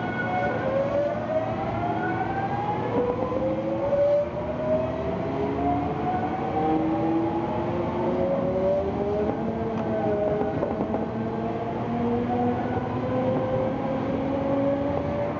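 Hankyu electric train accelerating: the whine of its traction motors and inverter rises in pitch, climbing again and again in a series of steps, over a steady rushing running noise.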